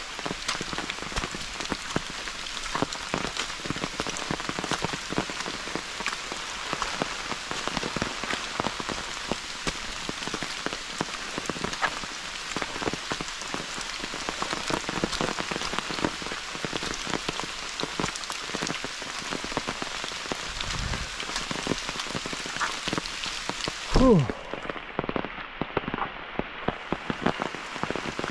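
Steady rain falling, with many separate drops striking close by. Near the end a single short, loud sound drops in pitch.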